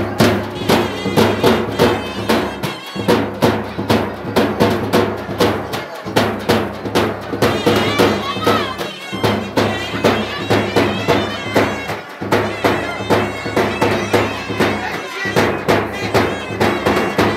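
Procession folk music: a band of large frame drums beaten in a fast, steady rhythm, with a nasal reed wind instrument playing a wavering melody over them. The low sound drops out briefly about every three seconds.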